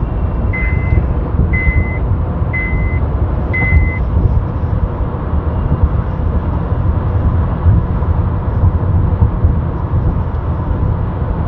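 Steady low road and engine noise inside a car, with four short, high electronic beeps about once a second during the first four seconds.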